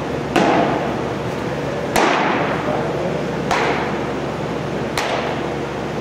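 Four sharp smacks of baseballs hitting leather gloves, about a second and a half apart, each ringing briefly in a large echoing hall, over a steady ventilation hum.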